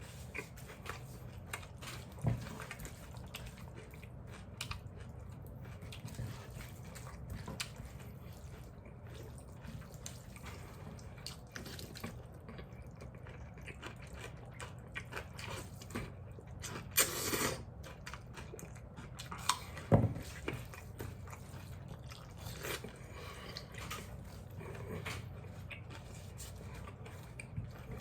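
People eating noodles: chewing and small clicks and knocks of utensils and bowls, with two louder knocks, one about two seconds in and one about twenty seconds in.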